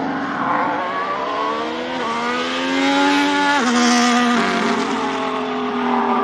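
Ferrari SF-23 Formula 1 car's 1.6-litre turbocharged V6 hybrid engine accelerating through the gears. The pitch climbs and drops sharply with each of about three quick upshifts, and the engine is loudest near the middle.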